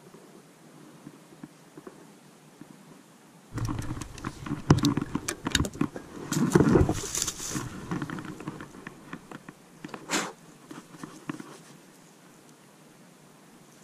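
Handling of a Winchester 37A single-shot break-action shotgun: about three and a half seconds in, a stretch of clothing and dry-leaf rustling with clicks and knocks as the gun is moved and its action broken open, then a single sharp click near the ten-second mark and a few light taps before it goes quiet.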